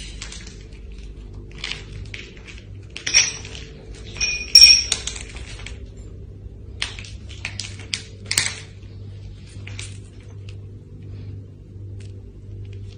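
Broken shards on a hard stone floor clinking and scraping as someone walks through them. Scattered sharp clinks, the loudest with a brief ring about four and a half seconds in, over a steady low hum.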